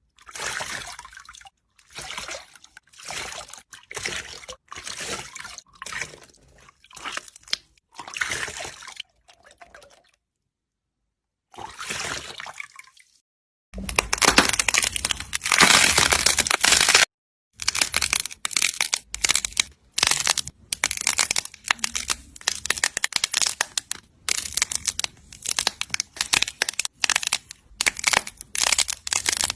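Slime being squeezed and pressed by hand, in short repeated bursts of wet, clicky squishing. It goes silent for about a second and a half near the middle, and there is a denser stretch of about three seconds just after that.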